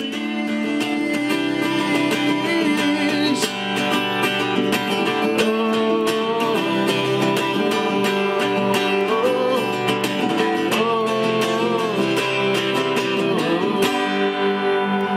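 Music led by guitar, running steadily with a wavering melody line over it.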